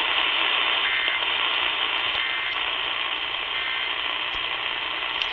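Steady radio static hiss from an off-air receiver, with three faint, short bursts of EAS digital data tones about a second and a half apart, short enough to be the end-of-message code.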